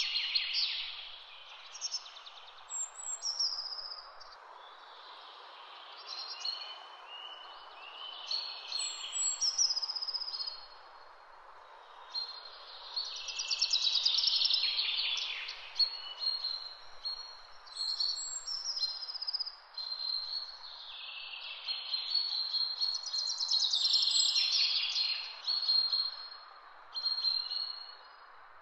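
Songbirds singing in a run of short whistled phrases and trills, the loudest bursts about half a second in, near the middle and about four fifths of the way through, over a steady background hiss.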